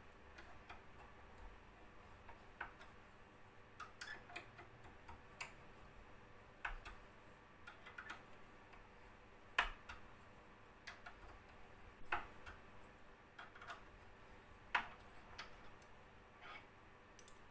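An Allen key and a BBQ gas regulator's brass fitting clicking and tapping as the fitting is worked loose in a vise: sparse, irregular light clicks, the sharpest a little past halfway.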